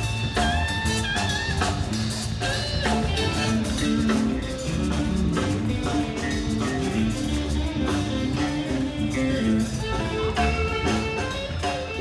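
Background music: guitar-led track with plucked notes over a drum beat.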